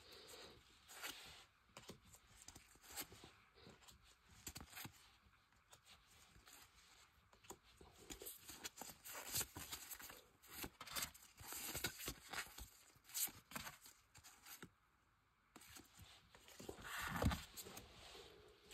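Foil trading-card packs and cards being handled: a run of soft, irregular crinkles, taps and tearing sounds, with a louder one near the end.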